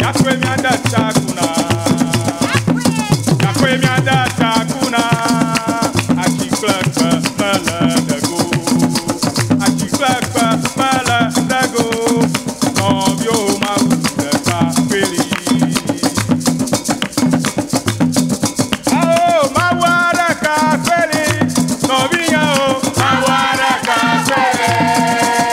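Agbadza music of the Ewe: a gourd rattle shaking a steady rhythm over drums, with voices singing. Near the end the voices hold a long note.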